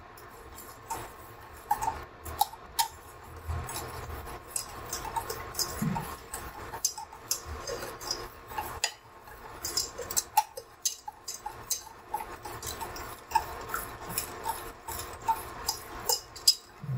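Wire whisk beating butter into melted chocolate in a stainless steel saucepan, its wires ticking and scraping against the pan in a quick, irregular run of clicks as the butter is worked in to make a smooth emulsion.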